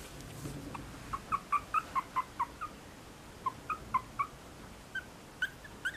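A 30-day-old long-coat Chihuahua puppy whimpering in short, high squeaks: a quick run of them about a second in, a few more around the middle, and more again near the end.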